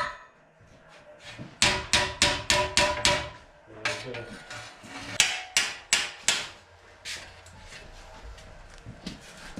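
Hammer blows on the steel sub rail of a 1932 Ford, each strike ringing briefly: a quick run of about six blows, then after a short pause several more, spaced a little wider, as the metal is knocked down flat.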